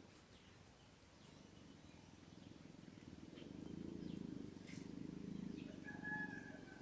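A cat purring, a low fast pulsing that swells and fades, with a few faint bird chirps near the end.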